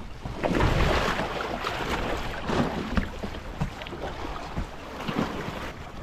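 Water sloshing and splashing around an inflatable kayak, with a few short knocks as the paddle is handled, and wind on the microphone.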